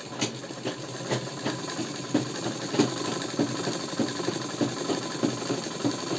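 Sewing machine running steadily and stitching a seam that joins a kali panel to a salwar, with a fast, even clatter of the needle.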